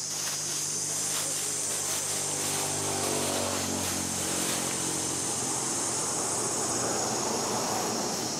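A distant engine drone, a steady low hum whose pitch drifts slightly upward before it fades out about halfway through. Under it, insects buzz steadily at a high pitch.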